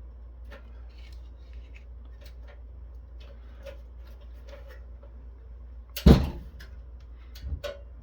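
Small clicks and taps of parts being handled as a circuit board is worked loose from a network switch's metal chassis, then one loud knock about six seconds in and a few lighter knocks near the end.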